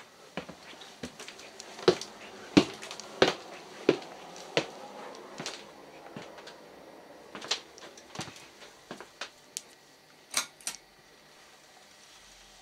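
Footsteps on wooden stairs and a wooden floor: a series of irregular sharp knocks and clicks, about one every half second to a second at first, then sparser, with a close pair of clicks near the end.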